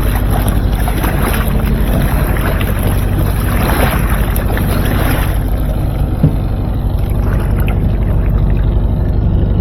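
Fishing boat's engine running steadily with wind on the microphone. A louder rush of noise comes in for a couple of seconds around the middle, and there is a single sharp knock a little later.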